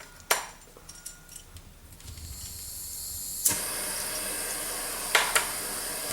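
Gas torch being lit for annealing brass cases: a hiss of gas builds, a sharp click about halfway through, then the flame burns with a steady hiss. A couple of sharp metallic clicks near the end.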